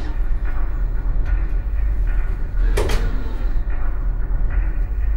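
A steady low rumble with a single sharp knock of a door being handled about three seconds in.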